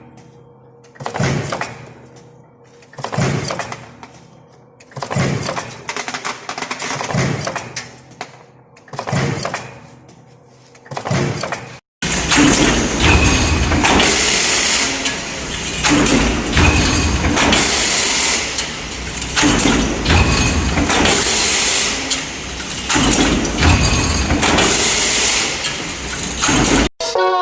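Metal stamping press cycling, one loud stroke about every two seconds. About twelve seconds in it cuts off suddenly, and a louder, dense, continuous clatter takes over.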